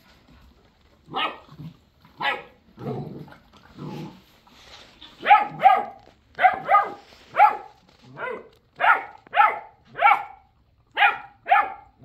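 Great Pyrenees puppy barking over and over in short, high-pitched barks, many in quick pairs, getting louder from about five seconds in.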